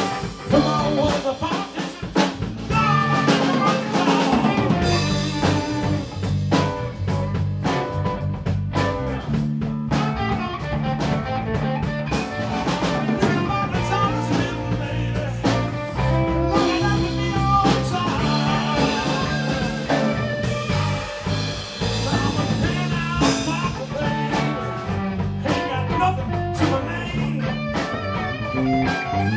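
Live band of electric guitar, electric bass guitar and drum kit playing an instrumental stretch of a blues-rock song: a steady bass line and drum beat under guitar lines.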